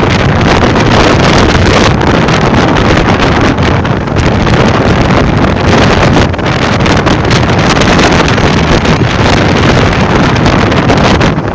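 Strong wind gusting hard across the microphone: a loud, continuous buffeting rumble.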